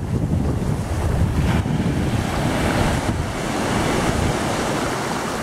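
Sea surf breaking and washing up a sand beach, with wind buffeting the microphone. The hiss of the wash grows louder about a second and a half in.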